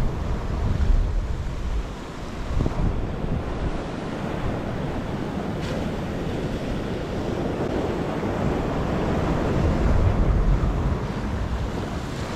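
Ocean surf surging and washing through a rocky channel, with wind buffeting the microphone in uneven gusts.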